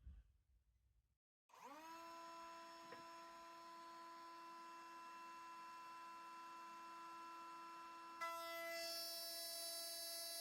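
Wood router motor spinning up to a steady high whine. Near the end it gets louder and hissier as the bit starts cutting wood for a tongue-and-groove joint.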